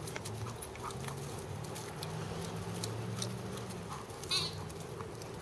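Dogs at play: a low, broken growl in the first few seconds, with scattered scuffs and rustles of paws over grass and dry leaves. A short high chirp comes about four seconds in.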